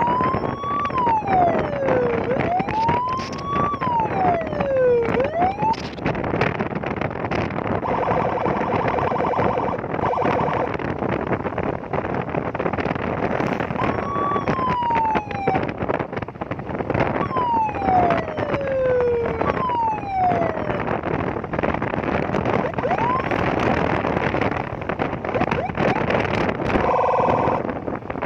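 Custom police-escort electronic siren fitted to a Yamaha Nmax scooter, wailing in tones that sweep up and down again and again. Twice it switches to a pulsing, buzzing tone, about eight seconds in and again near the end, all over a steady rushing noise.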